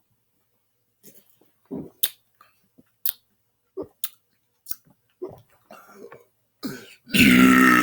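A man gulping down carbonated seltzer in a string of short swallows and clicks, then a loud, pitched belch that starts near the end.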